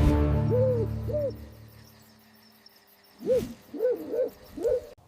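An owl hooting in short, arched hoots: two faint ones about a second in, then a louder run of about four near the end. A steady low droning tone fades out over the first two seconds.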